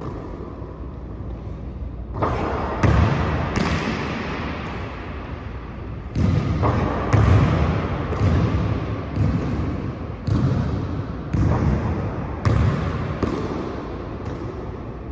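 A basketball bouncing on a hardwood gym floor during a shooting drill, about a dozen sharp thuds at uneven intervals of half a second to a second or more. Each thud echoes in the large hall.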